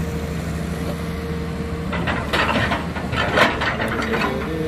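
Excavator's diesel engine running steadily, with a burst of cracking and clattering from about two seconds in, loudest a little past three seconds.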